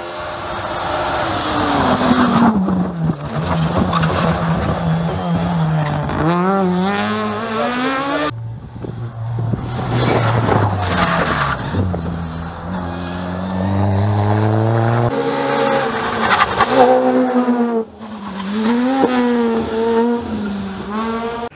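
Rally cars at full racing pace on a tarmac stage, one after another, engines revving high and dropping repeatedly as they shift gear and brake for corners.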